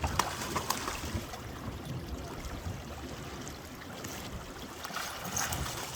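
Water lapping and trickling around a small fishing boat, with a few light knocks in the first second.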